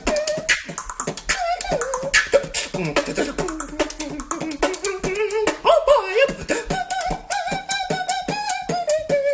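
Human beatboxing: fast mouth-made kick, snare and hi-hat clicks, with a wavering voiced melody line carried along underneath.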